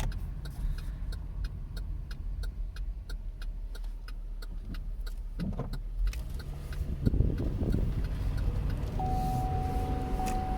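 Inside a 2015 Chevrolet Impala while driving: low engine and road rumble with a regular ticking about two to three times a second, and the engine pulling harder around six to eight seconds in. About nine seconds in a steady warning chime tone starts and holds; it is set off by a laptop sitting on the seat.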